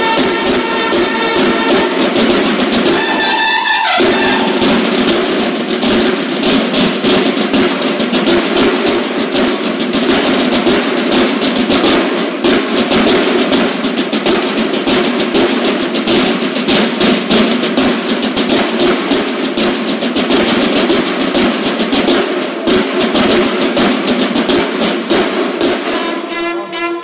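Banda de guerra drum and bugle corps: bugles hold a chord and slide down about three seconds in, then the snare and bass drums carry on with a fast cadence full of rolls. Held bugle tones come back in near the end.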